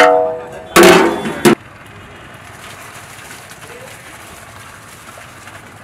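A metal ladle clangs against a large aluminium cooking pot and rings out for about half a second. A second loud clattering noise follows and cuts off suddenly about a second and a half in, leaving only a steady low background hiss.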